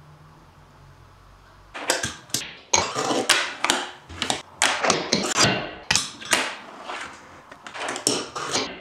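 A fingerboard being ridden: a quick run of sharp clacks as the small deck pops and lands, with short scrapes of the trucks and deck sliding and grinding along a homemade ledge and bank. It starts about two seconds in, after a quiet lull.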